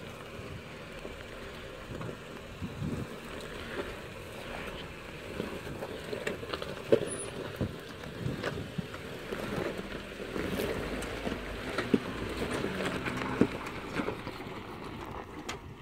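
Jeep Wrangler crawling slowly over a rocky trail, its engine running low under a steady rumble, with scattered crunches and clicks of loose stones and gravel.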